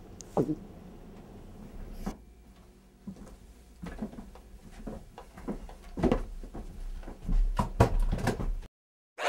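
Scattered knocks, thumps and footsteps of people moving about a small room, sparse at first and busier in the second half, cutting off abruptly near the end.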